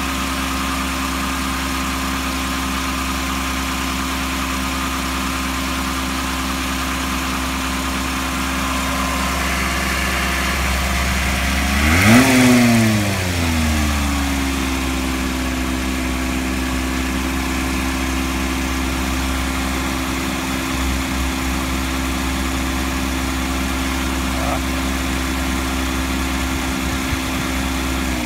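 Mercedes-Benz M120 V12 of a CL600 idling steadily, with one brief throttle blip about twelve seconds in that rises in pitch and falls back to idle within about two seconds.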